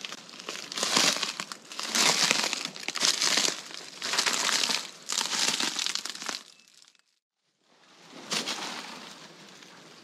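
Footsteps crunching through dry leaves and brush at a steady walking pace, about one step a second; the sound drops out completely for under a second about seven seconds in, and the steps are fainter after that.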